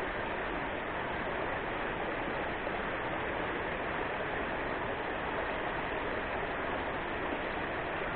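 Rushing water of river rapids, a steady even hiss with no breaks.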